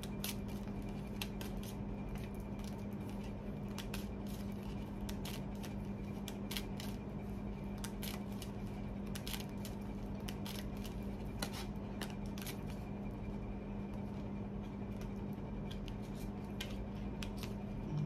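A deck of tarot cards being shuffled by hand: a long run of light card flicks and snaps, irregularly spaced, over a steady low hum.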